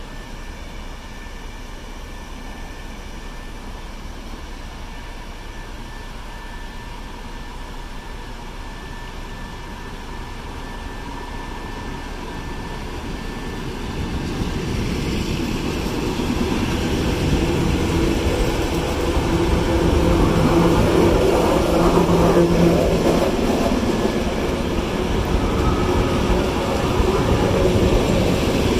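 ER9M electric multiple unit pulling out of a station: a steady low rumble at first, then from about twelve seconds in a growing rumble of wheels on rail as the carriages speed up past, with a humming tone over it.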